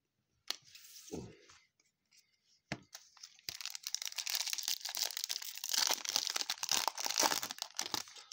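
A trading card pack's wrapper being handled and then torn open, a few short rustles and clicks, then about four to five seconds of continuous crinkling and tearing.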